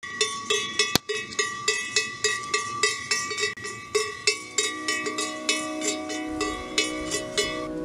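A cowbell clanking in a steady rhythm, about three strokes a second, as cattle walk. Soft sustained music comes in under it about halfway, and the clanking stops near the end.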